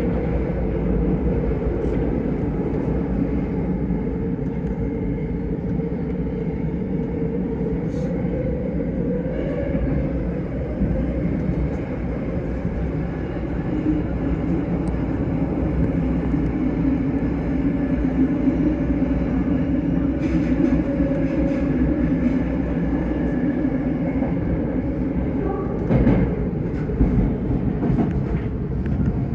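Tokyo Metro 05 series subway train running at speed: a steady rumble of wheels on rail with a pitched motor drone that rises and swells midway, and a few sharp clacks near the end.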